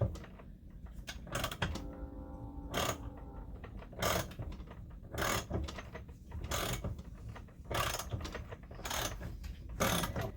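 Socket ratchet clicking in short strokes, about one every second or so, as it turns an oiled thread tap into a damaged spark plug hole. There is a brief ringing metal squeal about two seconds in.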